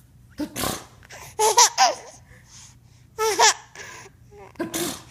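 A person fakes sneezes twice, short 'achoo' bursts about four seconds apart. Each time a baby answers with bursts of high-pitched giggling laughter.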